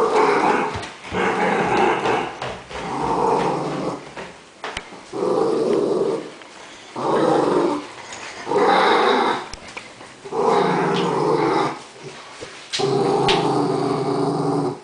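Small dog growling in about eight separate growls of a second or so each, with short pauses between them. It is a bedtime protest growl: the dog growls the whole way to its bed because it does not want to go to sleep.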